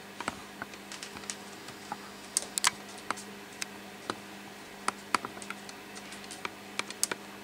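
Scattered light clicks and taps at an irregular pace, some louder than others, over a steady low hum.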